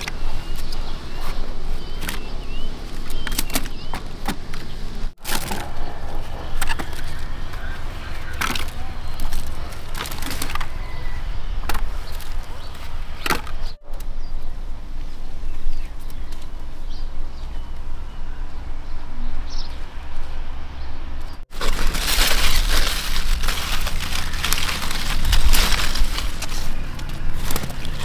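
Zucchini plants being harvested by hand: many short snaps and cracks of stems being broken and leaves rustling, with a few faint bird chirps. Near the end comes a louder, steady rustling of foliage.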